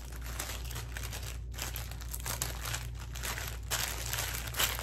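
Small plastic bags of diamond-painting drills crinkling as they are handled and stuffed back into their packet, with a busier stretch of crinkles near the end.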